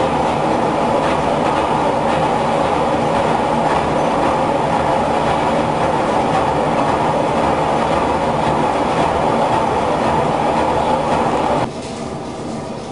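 Loud, steady mechanical clatter of steam-driven textile mill machinery running, which drops abruptly to a quieter level near the end.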